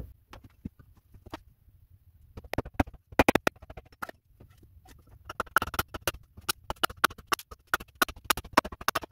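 Hatchet blows and a wooden mallet knocking on the hatchet, splitting a small log on a chopping block to flatten one side. A series of sharp wooden knocks, loudest about three seconds in, then a long run of quick strikes, several a second.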